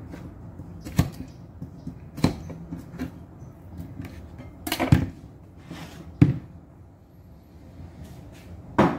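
Irregular sharp knocks and clunks of kitchen items being handled and set down, about five of them, the loudest about five and six seconds in.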